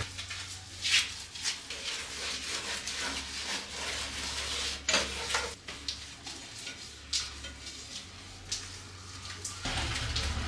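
Scattered clinks and knocks of hard household objects being handled and set down, a few sharp ones standing out, over a low steady hum.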